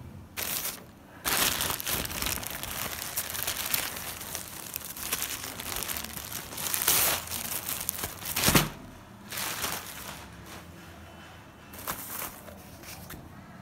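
Plastic courier mailer and clear plastic wrapping crinkling and rustling as they are handled and pulled open. The rustling comes in dense bursts through the first nine seconds or so, then in a few short bursts.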